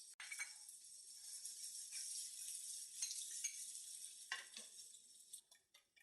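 Diced onion and mushrooms frying in oil in a pan, with a faint steady sizzle and a few scrapes from a utensil stirring them.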